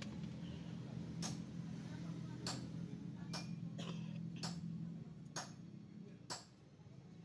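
Sharp clicks, about one a second, over a low steady hum that stops about five seconds in.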